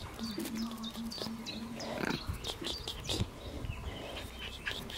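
Four-week-old Shiba Inu puppies vocalising and sniffing as they nose at a hand: a low, steady note held for about a second and a half near the start, then short snuffles and clicks, with scattered high chirps.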